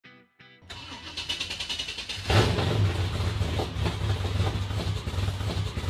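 Engine sound effect under a logo animation: two short blips, then an engine note building up and a sudden loud kick about two seconds in, running on steadily with a low pulsing note.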